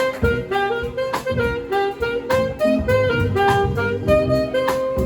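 Live band playing an instrumental section: a saxophone runs through quick short notes over bass and drums, then holds one long note near the end.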